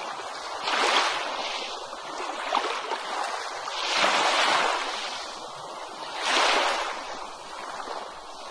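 Ocean surf washing onto a beach: a steady hiss of water with three louder wave surges, about a second in, around four seconds in, and near six and a half seconds.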